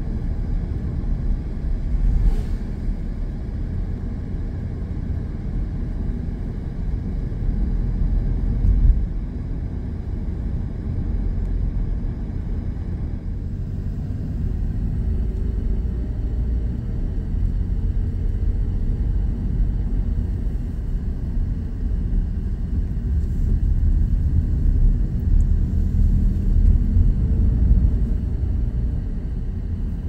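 Car driving along a road, heard from inside the cabin: a steady low rumble of tyres and engine that swells a little now and then.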